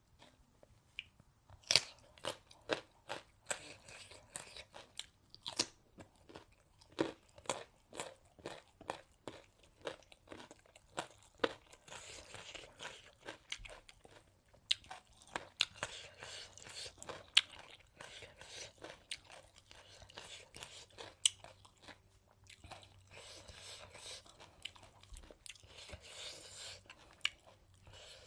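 Close-miked crunching and chewing of raw salad vegetables, with many sharp bites through the first half, then wetter chewing with fewer crunches.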